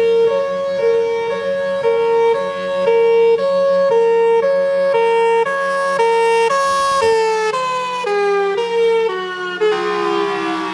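A two-tone siren alternating between a high and a low note about twice a second. About two-thirds of the way in, the notes step downward, and near the end the pitch glides steadily lower. A steady low hum runs underneath.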